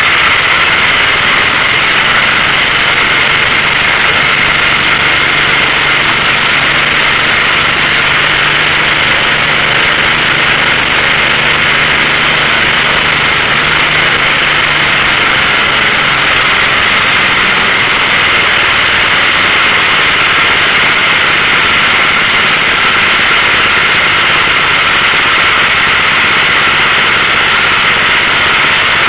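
Tecumseh 12 hp riding-mower engine running steadily on a newly fitted replacement carburetor, while its idle stop screw is being set.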